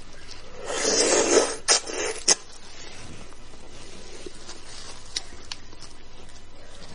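Close-up eating sounds of beef bone marrow: a loud slurp lasting about a second and a half, starting about a second in and ending in two sharp clicks, then quieter small mouth and chewing noises.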